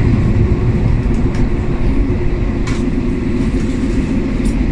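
Matterhorn Gotthard Bahn passenger train running along the line to Zermatt, heard from inside the carriage as a steady low rumble. A few short faint clicks from the running gear come through it.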